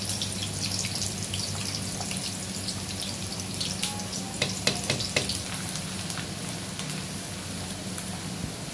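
Sliced onions sizzling in oil in a pan, a steady crackle over a low hum. A metal ladle clicks against an aluminium pot of thickened kadhi several times about halfway through.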